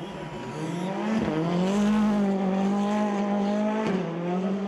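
Rally car engine at high revs: its pitch climbs over the first second, holds steady, then drops briefly just before four seconds in before holding again.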